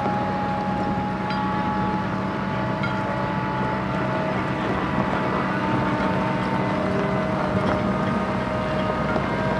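Heavy diesel engines running steadily, a low drone with a few thin whining tones that shift in pitch now and then.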